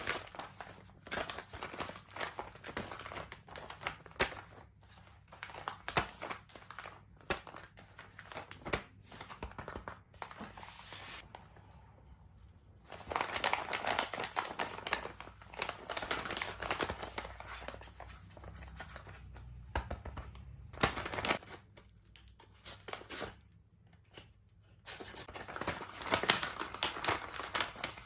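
Handmade paper blind bag being handled and opened: paper crinkling and tearing in irregular rustles, with a few short pauses.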